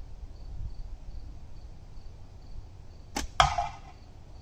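Slingshot shot: a sharp snap of the bands on release, then about a quarter second later the steel ball hits the can target with a louder metallic smack that rings briefly, the ball lodging in the can. Faint insect chirping runs underneath.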